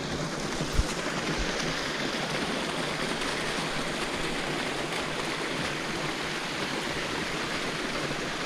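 A shallow woodland stream rushing steadily over rocks and a small cascade, with a single brief knock just under a second in.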